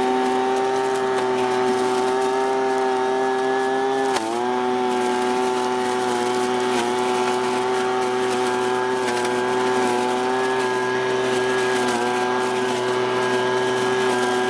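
Husqvarna 125BV two-stroke engine blower-vacuum running steadily at high speed in vacuum mode, sucking up dry leaves. About four seconds in, the engine pitch dips briefly, then recovers.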